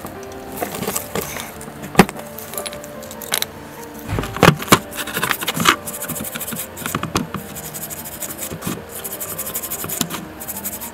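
Background music over sharp metallic clicks of small bicycle hub parts being handled, then the scratchy scrubbing of a toothbrush on wet hub parts, the axle and ball bearings, in a tray of liquid.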